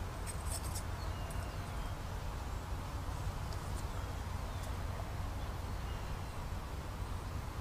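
Steady riverbank ambience: a constant low rumble with a hiss over it, a few short clicks about half a second in, and faint bird chirps.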